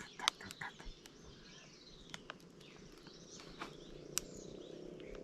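A banana plant's stem slowly giving way and bending over, making scattered faint cracks and snaps as it tears. Birds chirp faintly in the background.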